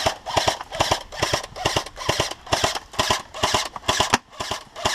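Airsoft gun firing a rapid, steady string of shots, about four to five a second.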